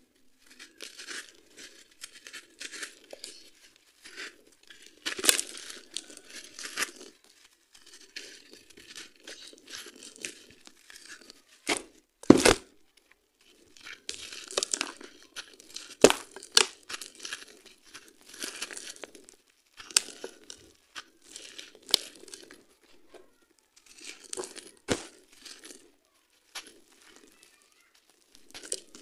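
Dry, gritty sand-cement chunks crushed and crumbled by hand, a run of irregular crunching with grit falling, broken by several sharp cracks as pieces snap.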